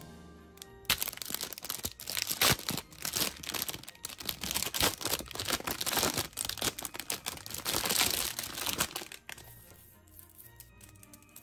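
Clear plastic candy wrapper crinkling as it is pulled open from around a foil-wrapped chocolate bunny, dense and irregular from about a second in, stopping about nine seconds in. Light background music underneath.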